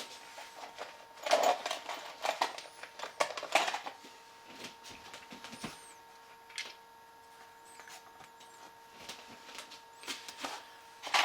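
Clicks and scrapes of a Ruger 10/22 rifle and its long takedown screw being handled as the screw is set back into a Magpul Hunter X22 stock, in a few short bursts in the first four seconds and scattered lighter ticks after, over a faint steady electrical hum.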